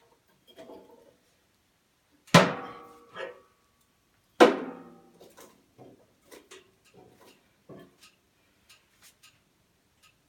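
Two loud metallic clangs about two seconds apart, each ringing briefly, as a fresh log is loaded into a HWAM wood-burning stove onto smouldering embers; faint scattered clicks follow.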